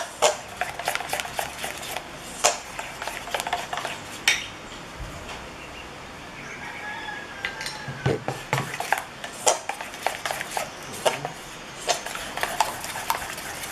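Metal utensil stirring thick flour batter in a stainless steel bowl, clinking and scraping against the sides. The stirring pauses for a few seconds around the middle, then brisk stirring with quick clinks resumes.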